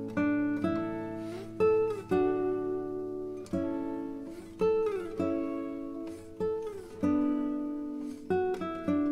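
Background music: a solo acoustic guitar playing plucked notes and chords, each ringing and fading, with a few sliding notes.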